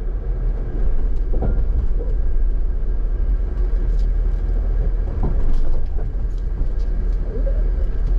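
Jeep engine running at low, crawling speed with a steady low rumble, heard from inside the cab as it creeps down a rocky off-road trail.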